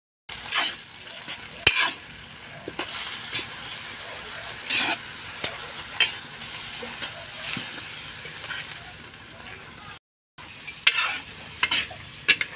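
Chopped kangkong (water spinach) stems sizzling in a large metal wok while a spatula stirs and scrapes them. Irregular scraping strokes sound over a steady frying hiss, and the sound breaks off briefly about ten seconds in.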